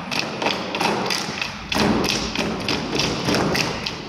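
A step team stomping and clapping in unison on a stage floor: a quick run of sharp stomps and claps, about three to four hits a second.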